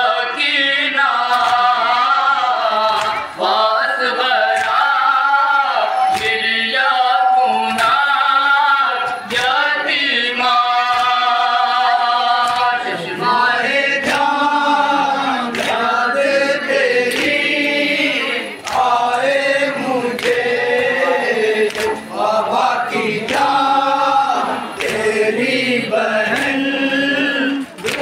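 Men chanting a Muharram noha (Urdu lament) together in long, drawn-out sung lines, with no instruments. Sharp slaps come every second or so, from matam chest-beating.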